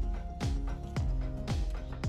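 Background music with a steady beat, a kick drum about twice a second, under a bass line and cymbals.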